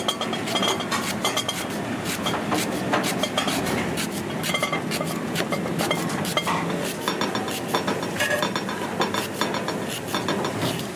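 Chef's knife slicing lemongrass stalks into thin rounds on a thick wooden chopping block: a rapid, uneven run of sharp knife taps on the wood.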